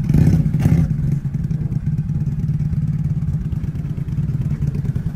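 ATV engine running steadily at a low, even pitch, with muddy water splashing and churning loudly during the first second.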